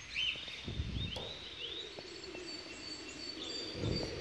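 Outdoor ambience of small birds chirping in short rising notes, with a steady low drone in the background and a few dull bumps.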